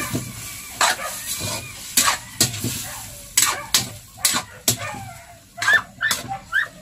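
Metal spatula stirring pieces of stingray in a metal wok, with irregular scrapes and clanks against the pan over a light sizzle of frying in oil.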